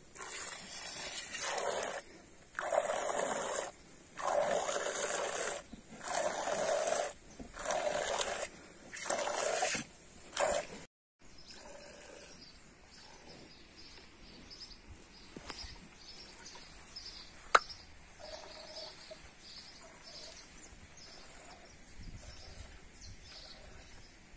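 Milk squirting in rhythmic hand-milking strokes into a cut-down plastic bottle: about eight noisy bursts, one every second or so. About halfway through the sound drops away to quiet open-air background with a single sharp click.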